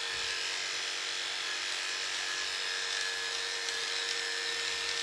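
Electric dog clippers running with a steady hum as they clip the hair on a spaniel's paw.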